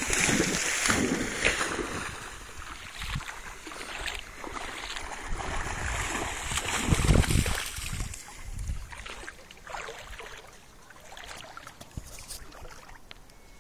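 Puppy splashing as she bounds and paddles through shallow seawater after a frisbee, a run of uneven splashing surges that is loudest in the first half and dies down toward the end.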